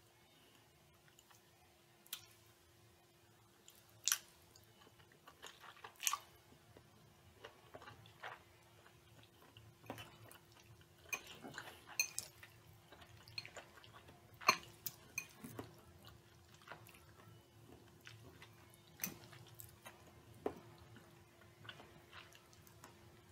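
A person eating pasta salad with a fork: quiet chewing with irregular sharp mouth smacks and clicks, over a faint steady hum.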